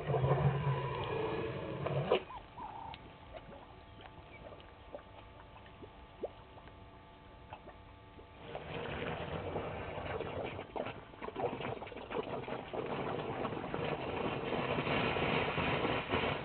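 African elephant drawing water from a shallow puddle with its trunk: wet sloshing and sucking with many small splashes and clicks, in the first two seconds and again steadily from about halfway through.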